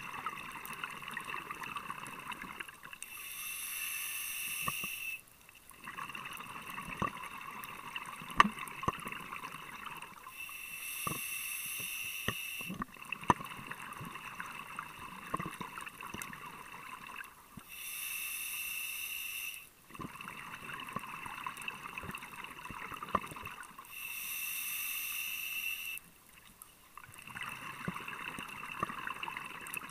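Scuba diver breathing through a regulator underwater: a steady hiss about 2 s long on each inhale, then a longer bubbling rush on each exhale, about four breaths in a row. Scattered sharp clicks come through, mostly during the exhales.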